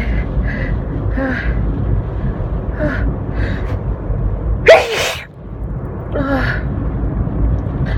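A woman's sneeze build-up: several short gasping in-breaths, then one loud sneeze a little under five seconds in, followed by another breath. A steady low car-cabin road rumble runs underneath.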